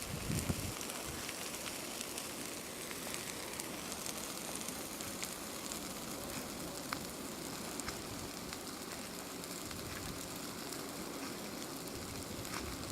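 Wildfire burning in black spruce: a steady hiss of flames with many small, scattered crackles and pops.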